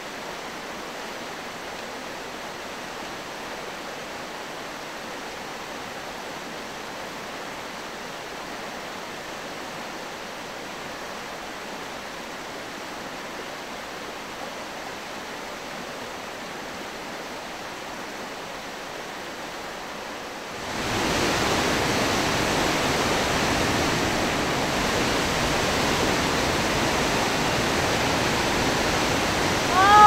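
Steady rushing of a rain-swollen river in flood. About two-thirds of the way through it jumps abruptly louder and fuller as the sound switches to a waterfall in heavy flow after rain.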